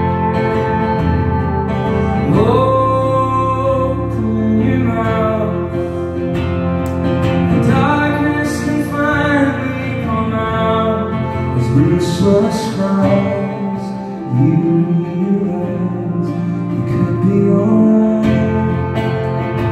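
Live band playing a song: strummed acoustic guitar with electric guitar, bass guitar and drums, and a male voice singing in places.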